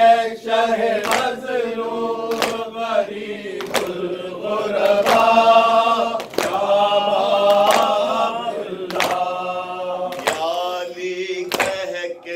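A group of men chanting a Shia lament (noha) together, led by a reciter, with a rhythmic slap of hands beating on chests (matam) about once every 1.3 seconds.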